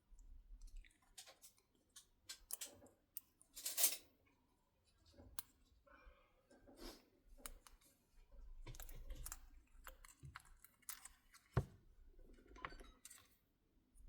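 Scattered small clicks and taps of tools and small phone parts being handled during repair, with sharper clicks about four seconds in and again near the end.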